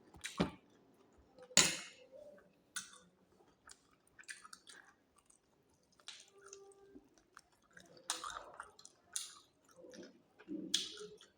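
Close-up chewing and biting of food, with irregular crunches and wet mouth clicks; the loudest crunch comes about a second and a half in, and another cluster of bites comes near the end.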